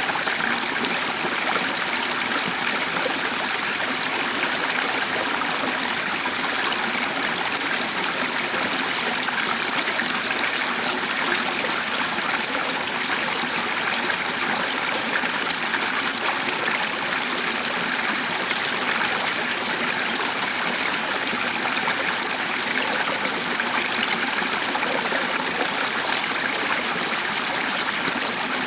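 A stream of running water, a steady, unbroken rush.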